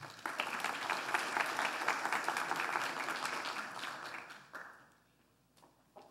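Audience applauding, a dense patter of many hands clapping that fades out after about four and a half seconds, followed by a few faint knocks near the end.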